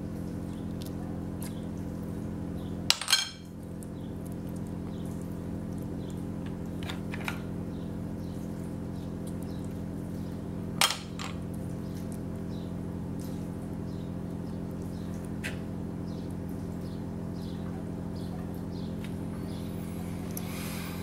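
Snail shells clicking against glass and against each other as cooked snails are pulled out by hand, with two sharp clicks about three and eleven seconds in and a few fainter ones, over a steady low hum.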